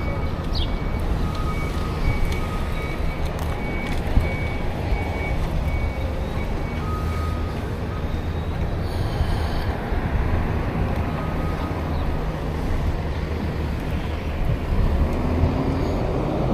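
Outdoor city street noise: a steady low rumble of traffic, with a faint high beeping repeating on and off over the first several seconds.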